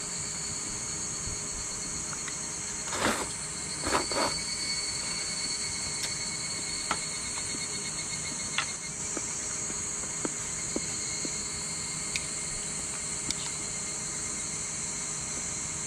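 Steady high-pitched chorus of insects chirring. Brief rustles or knocks come about three and four seconds in, and a few faint ticks are scattered through.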